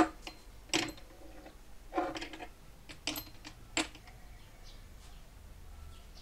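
Hard plastic clicks and knocks as a bathroom scale's plastic load-cell foot is handled and set into the scale's plastic frame: about five sharp taps over the first four seconds, the first the loudest.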